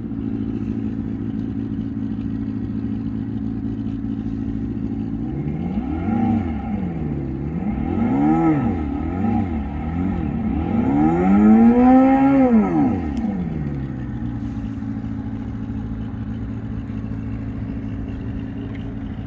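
Synthetic motorcycle engine sound from an add-on sound-effect speaker module on a Super Soco TC electric motorcycle, fitted so that the otherwise silent bike can be heard in traffic. It idles steadily, blips through a few short revs in the middle, then makes one longer, higher rev before dropping back to idle.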